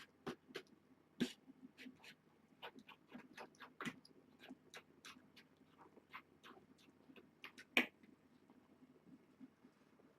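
Young kittens eating wet food off a plate: irregular small wet smacks and clicks of lapping and chewing, with one louder click a little before 8 seconds.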